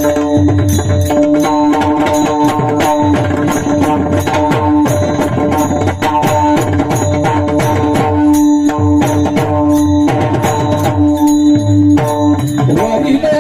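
Warkari kirtan accompaniment playing between sung lines: held, steady instrumental notes over a fast, dense drum and cymbal rhythm.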